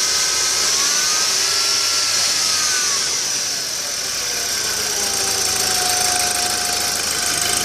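Strange noise from a B7 Audi A4 Cabriolet: a steady hiss with faint whining tones that slowly rise and fall in pitch, one settling into a steady whine about five seconds in.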